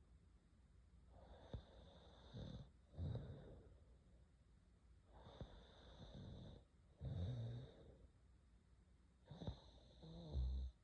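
A girl snoring faintly: three slow breaths about four seconds apart. Each has a breathy draw with a faint high whistle, then a low snore.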